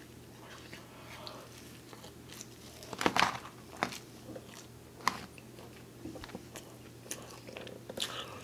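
Close-miked chewing of a mouthful of pepperoni pizza, with scattered short crunches and smacks, the loudest about three seconds in and others near five and eight seconds.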